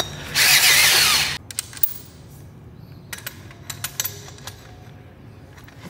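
Cordless drill with a step drill bit boring into a steel square-tube seat bracket for about a second, enlarging the hole; it cuts off suddenly. Then a scattering of light metallic clicks and taps as the bracket parts and hardware are handled.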